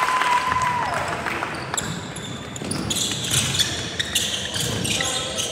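Basketball game sounds on a gym court: a drawn-out squeak in the first second, then a basketball bouncing amid scattered knocks and shuffling on the hardwood.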